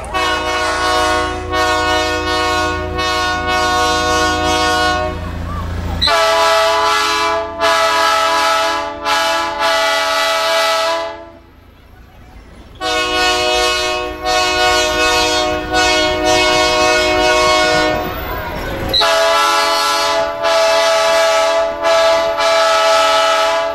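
Locomotive's multi-chime air horn sounding as a chord in four long blasts of about five seconds each, with short breaks between. The passing train rumbles underneath.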